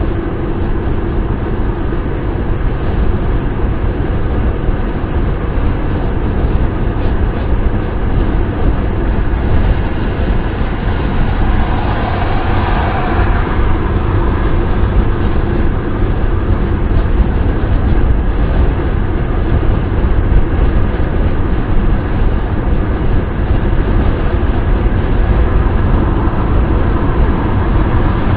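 Wind and road noise of a car driving at speed, heard from inside: a steady low rumble under an even rushing hiss. About halfway through, the hiss briefly swells brighter for a second or two, then settles back.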